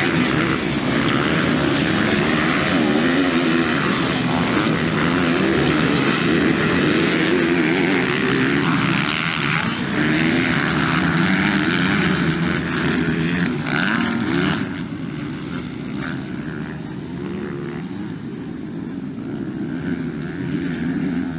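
Several motocross bikes' engines revving hard and overlapping, their pitch rising and falling as the riders work the throttle; the engines grow quieter about two-thirds of the way through.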